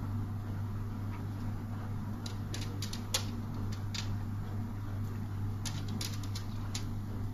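Steady low hum with a scattering of short, light clicks and taps, the sharpest about three seconds in.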